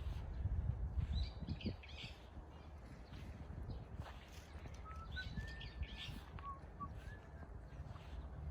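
Wild birds calling outdoors: two clusters of quick chirps, about a second in and again around five to six seconds in, with a few thin whistled notes between. A steady low rumble runs underneath.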